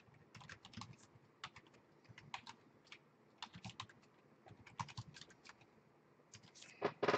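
Computer keyboard being typed on in irregular bursts of keystrokes, ending in a brief, louder clatter near the end.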